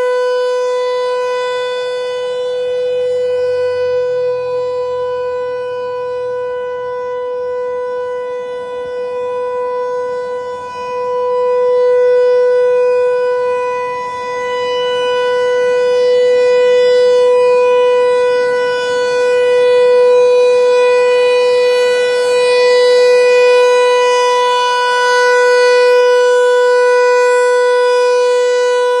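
American Signal T-128 rotating outdoor warning siren sounding a steady tone, its pitch holding level while the loudness swells and fades every few seconds as the rotating head sweeps past.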